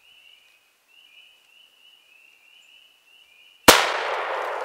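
A single shot from a percussion cap lock 12-gauge muzzle-loading shotgun firing a black-powder load of number 4 shot, near the end. It is sudden and very loud, and its echo dies away over a second or more.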